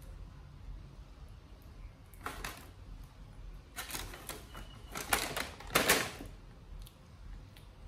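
Thin plastic bag crinkling and rustling in three short bursts, the loudest about five to six seconds in.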